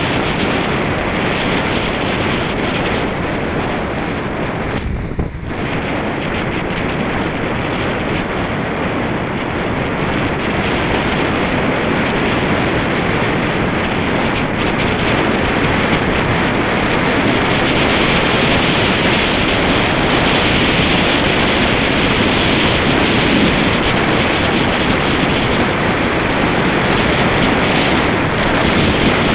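Wind rushing over the microphone of a camera on a moving bicycle: a steady, noisy roar that dips briefly about five seconds in and grows a little louder through the second half.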